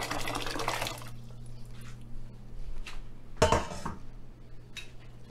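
Water and green gungo peas pouring into a cooking pot, the pour stopping about a second in. Then a few light clinks and one louder knock of kitchenware about three and a half seconds in.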